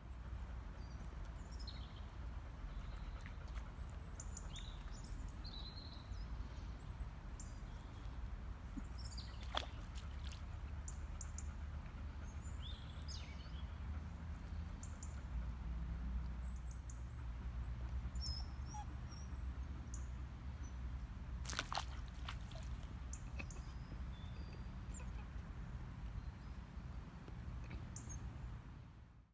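Outdoor woodland ambience: birds chirping here and there over a steady low rumble, with two sharp clicks, one about ten seconds in and one about twenty-two seconds in.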